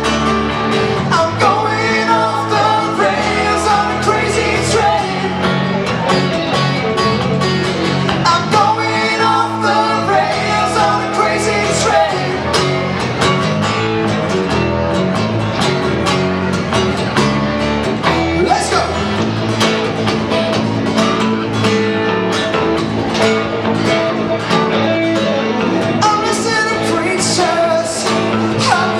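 A live country band playing an upbeat song: strummed acoustic guitar, electric guitar, electric bass and fiddle, with a singer carrying the melody.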